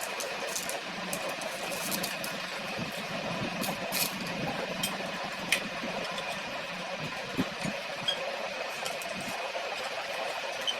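Scattered sharp metallic clicks and clinks of tools and small motor parts being handled during repair work, over a steady background hum.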